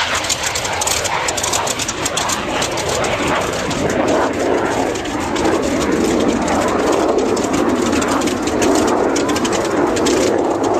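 Aircraft engine noise from an aeroplane flying past, a loud steady rush that grows louder from about four seconds in.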